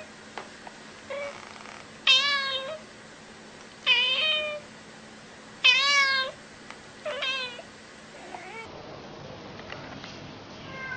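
Domestic cat meowing again and again: about five drawn-out meows spaced roughly one and a half to two seconds apart, the middle three the loudest.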